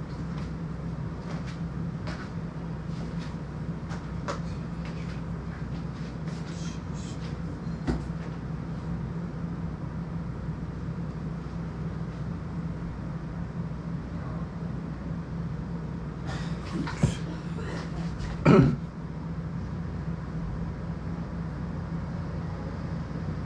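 Steady low mechanical hum in a room, with scattered light clicks and taps of handling, and two louder sharp knocks about a second and a half apart, three quarters of the way in.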